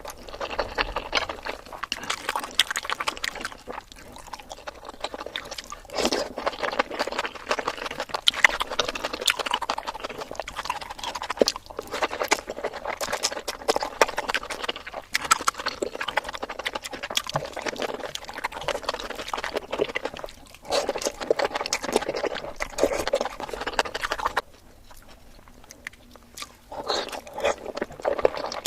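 Sped-up mukbang eating sounds: a dense, continuous run of chewing and wet mouth smacks close to the microphone, dropping to a quieter stretch a few seconds before the end.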